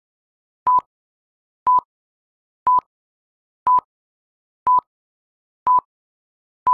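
Film-leader countdown beeps: a short, steady, high-pitched beep once a second, seven times, each starting and stopping with a small click, with silence between.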